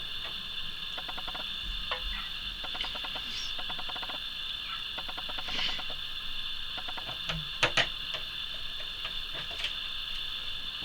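A screwdriver undoing a small screw from a printer foot: short runs of fast small ticks, then two sharp clicks close together late on, over a steady high-pitched background hiss.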